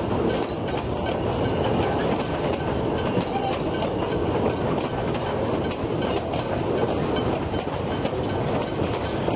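Narrow-gauge wooden passenger carriages of the Puffing Billy steam railway rolling past, a steady rumble with wheels clacking over the rails.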